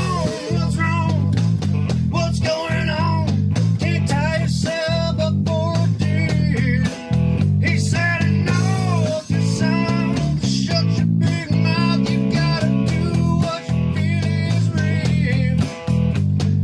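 A band playing a song: a man singing over electric guitar and a steady bass line.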